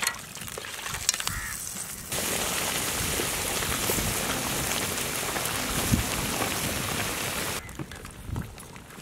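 Crab masala gravy sizzling and bubbling in a kadai: a steady hiss that starts suddenly about two seconds in and cuts off suddenly about a second and a half before the end, with scattered clicks before and after it.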